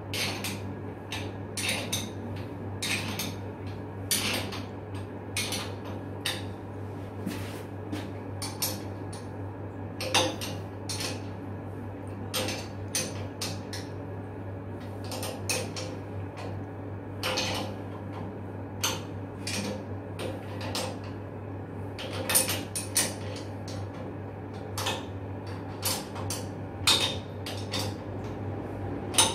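Steel spanners and bolts clinking and tapping irregularly against the flanged joint of a fire-pump gate valve as it is worked on, a few sharper clanks among lighter clicks, over a steady low hum.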